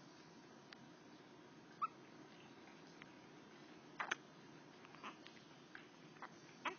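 A three-week-old baby hiccuping: several small, sharp hics, some with a faint squeak, about a second or two apart.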